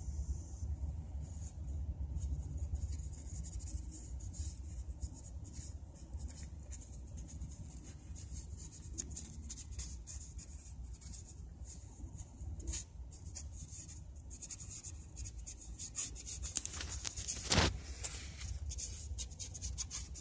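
Soft rubbing and scratching with scattered light clicks over a steady low rumble, and one louder scrape about three seconds before the end.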